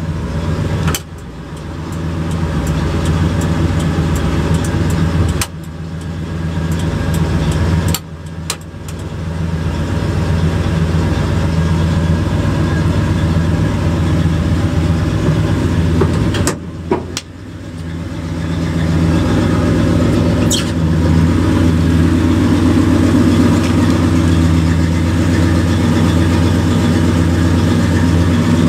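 A Dodge 318 V8 in a 1970 D100 pickup running steadily, heard from inside the cab, with a few short drops in level.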